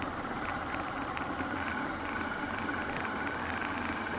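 Motorcycle engine running steadily at low speed, with light ticks and rattles from the bike over the rough dirt track.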